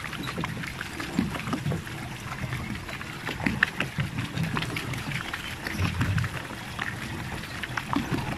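Water splashing and lapping around a pedal-powered water bike as it is pedalled, with scattered small knocks and low rumbling bursts.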